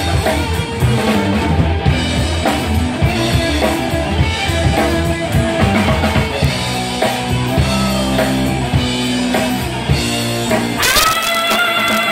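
Live rock band playing: drum kit, electric guitars and bass. Near the end the drums and low end stop and one sustained high note rings on.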